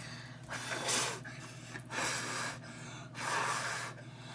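A person blowing in short puffs on freshly spread tire-patch glue to dry it, three breaths about a second apart.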